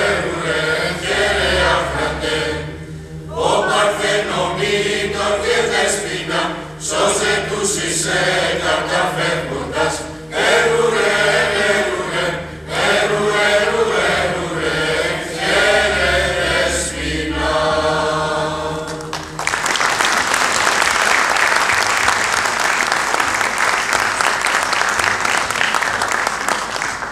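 Mixed choir of men, women and children singing a Christmas song. The singing ends about nineteen seconds in and audience applause follows.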